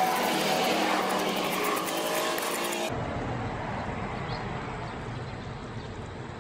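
Palm sugar syrup sizzling and bubbling in a hot wok while a spatula stirs and scrapes it, a bright crackling hiss. About three seconds in it drops abruptly to a softer, duller bubbling over a low hum.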